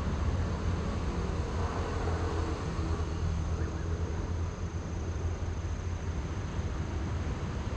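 Small FPV cinewhoop drone's motors and ducted propellers spinning at idle while the drone sits on the ground, giving a steady, even buzz.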